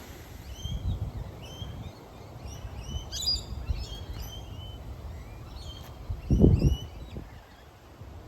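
Small birds chirping, many short rising calls through the whole stretch, over an uneven low rumble with one loud low thud about six and a half seconds in.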